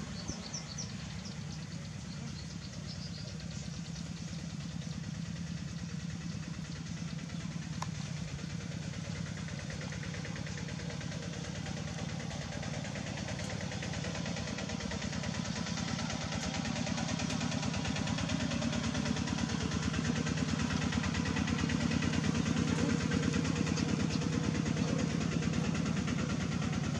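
A small engine running steadily with an even, pulsing hum, getting louder about two-thirds of the way through.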